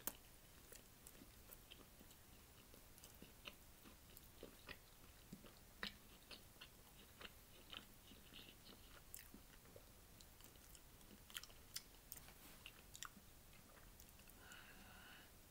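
A person chewing a sandwich close to the microphone: faint, scattered mouth clicks and smacks, a few of them louder.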